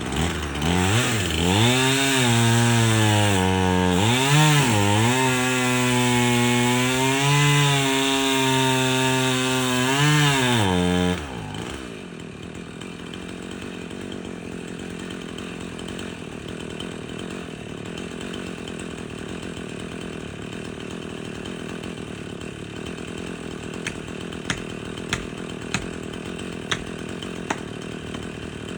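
Chainsaw cutting into a spruce trunk at full throttle, its pitch dipping and recovering as the chain bogs under load in the cut; about eleven seconds in it drops abruptly to a steady idle. Near the end, about six sharp knocks, hammer strikes driving a felling wedge into the back cut.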